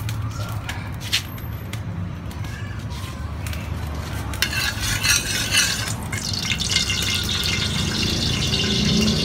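Cooking oil heating in a large metal wok, beginning to sizzle and crackle as it gets hot; from about four seconds in, a metal spatula scrapes and taps around the pan, and the sizzle grows louder toward the end, over a low steady rumble.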